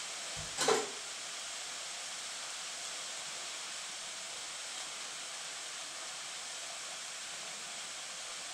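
Steady, even hiss of kitchen background noise, with a single short knock a little over half a second in as an avocado is being cut on a board.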